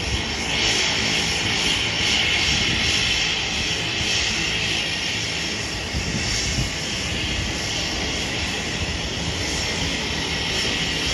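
Cessna 208 Caravan's single turboprop engine and propeller running steadily at taxi power as the plane taxis close by.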